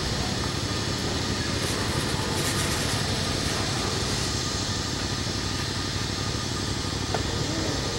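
Freight train boxcars rolling past at close range: a steady rumble and clatter of steel wheels on the rail.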